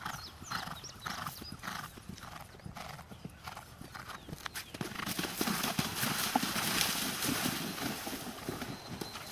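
A cross-country event horse's hooves beating on turf at a canter, in a steady rhythm of about two beats a second. About halfway through, the horse goes into water and the hoofbeats give way to louder splashing.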